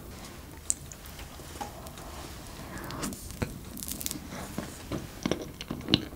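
Close-miked eating sounds of soft cream cupcake taken from a wooden spoon: wet mouth smacks and small clicks. A lone click comes near the start, and the sounds grow busier in the second half, with the sharpest click just before the end.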